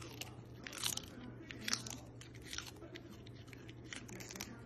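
A dachshund biting and crunching a crisp piece of food held in a hand. The crunches are irregular, several to the second, and the loudest come about one and two seconds in.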